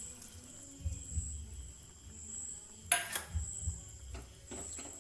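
A metal utensil knocks sharply against a cooking pan once about three seconds in, with a few lighter clinks around it as coconut milk is added to chicken cooking in the pan. A faint high-pitched chirring pulses on steadily underneath.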